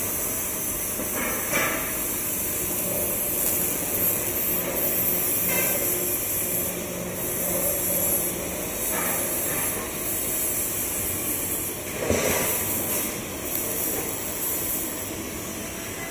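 Metal workshop noise around steel chair frames: a steady hiss with a few knocks and clanks of metal, the loudest about twelve seconds in.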